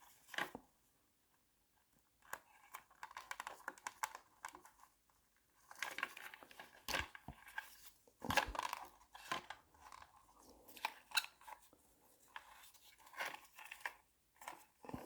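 Hands working on a motorcycle's wiring loom and plastic connectors: irregular rustling, crinkling and small clicks, coming in clusters after a short pause near the start.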